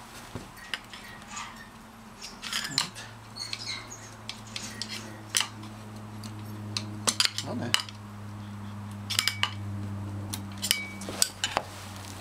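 Metal tools clicking and clinking against the clutch parts of a motorcycle engine being taken apart, in irregular sharp strikes. A steady low hum comes in about three seconds in.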